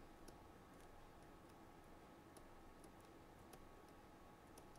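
Near silence: faint room hum with faint, irregular clicks of a stylus tapping as characters are handwritten on screen.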